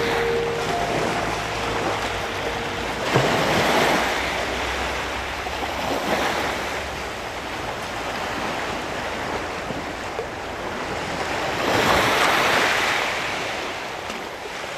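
Ocean surf breaking and washing up on the shore, surging in waves several seconds apart. The last notes of background music fade out in the first few seconds.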